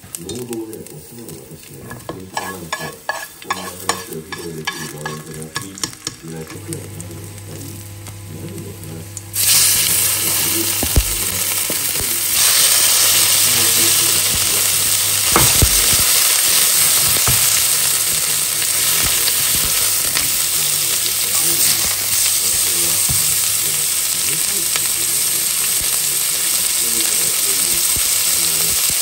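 Steak frying in a hot pan. After a few seconds of light clicks and knocks, a loud, steady sizzle starts suddenly about nine seconds in and keeps going, a little louder from about twelve seconds in.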